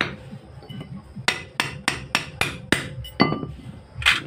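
Hammer blows on the steel of a truck propeller-shaft universal joint during a cross change. One blow first, then six quick blows about three a second with a ringing note under them, then two more.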